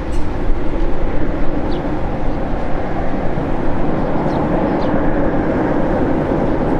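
Jet aircraft engines running with a steady, loud rumble. A few faint short high chirps sound over it.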